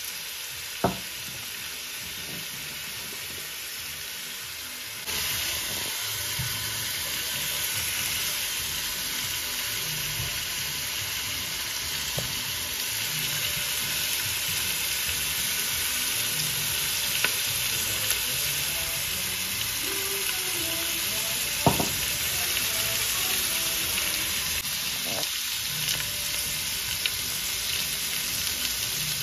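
Meat pieces sizzling as they brown in a stainless steel pressure-cooker pot, a steady frying hiss that grows louder about five seconds in. A few short sharp clicks sound over it.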